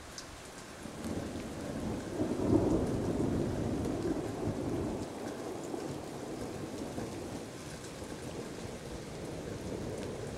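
Thunder rumbling over steady rain: the rumble builds about a second in, is loudest at around two and a half seconds, then slowly dies away.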